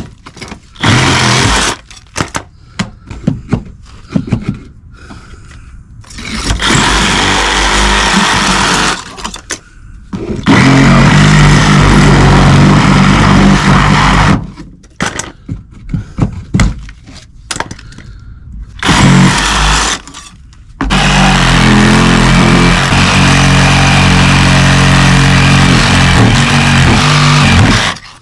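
Power tool motor running in bursts: several short pulls in the first few seconds, then two long steady runs of several seconds each, stopping and starting between them.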